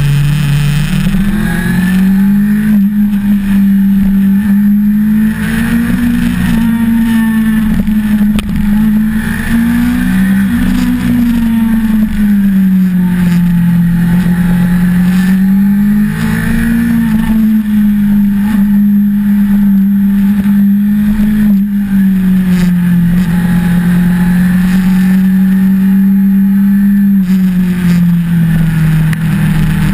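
1988 Suzuki GSX-R750J's oil-cooled inline-four engine running hard on an uphill climb, its note rising and falling again and again as the throttle is opened and closed through the bends, and dropping near the end.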